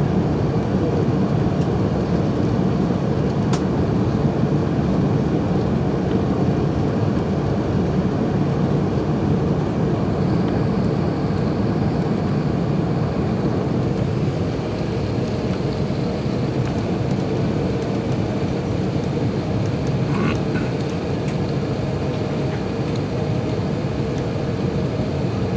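Steady cabin roar of an Airbus A380 on approach: engine and airflow noise heard from inside the passenger cabin. It eases a little about halfway through.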